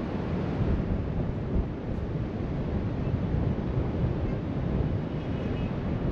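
Wind buffeting the microphone over the steady wash of ocean surf breaking along the shore.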